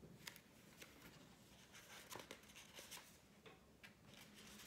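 Near silence with scattered faint clicks and rustles of a children's book being handled and its pages turned.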